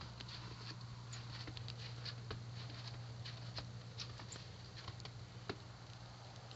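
Scattered, irregular light ticks and taps, several a second, over a steady low hum.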